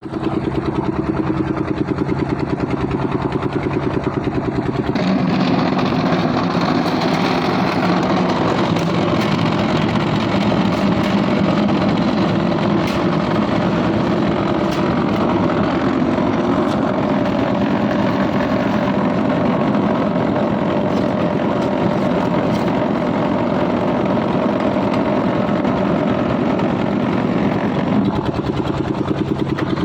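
An engine running steadily with an even pulsing beat. Its tone shifts about five seconds in and shifts back near the end.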